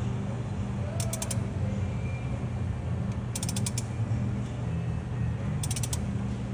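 Dodge Caravan engine running with the A/C on over a steady low hum, with a mechanical creaking and clicking noise that comes in short bursts of rapid clicks about every two and a half seconds. The noise is put down to vibration from the flywheel.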